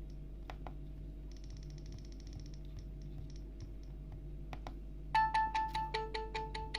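A few clicks of phone key presses, then about five seconds in an Alcatel OneTouch 2005D ringtone starts playing through a Samsung Ch@t 357's speaker: a quick melody of short beeping notes, about five a second, stepping between a few pitches.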